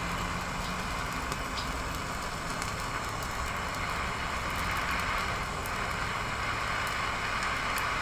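Handheld gas torch hissing steadily, its flame heating a copper tube lug on a cable end so that solder melts into the joint.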